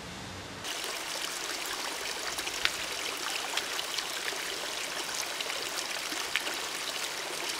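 A small stream running steadily, starting about half a second in, with a few light splashes of water.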